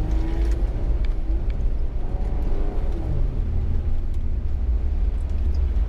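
Off-road vehicle driving, with a steady low engine and drivetrain rumble; the engine note shifts in pitch briefly twice.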